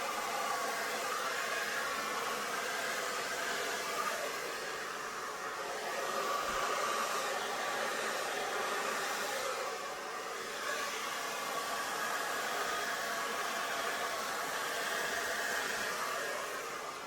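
Handheld hair dryer running steadily, its airflow blowing out wet acrylic paint in a fluid-art pour, with slight rises and dips in level as it is moved.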